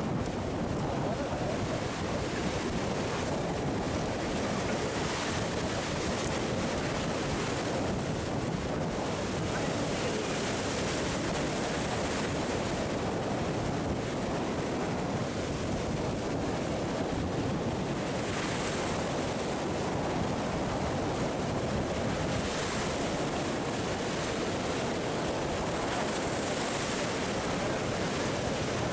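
Sea surf breaking and washing over shoreline rocks, a continuous rush that swells every few seconds as waves hit.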